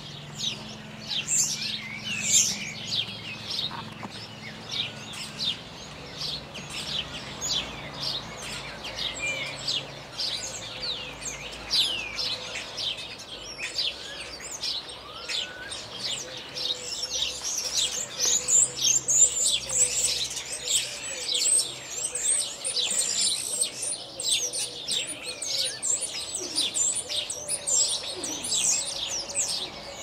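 Several common starlings on overhead wires calling together: a dense, continuous run of quick high chirps and clicks, busiest a little past halfway.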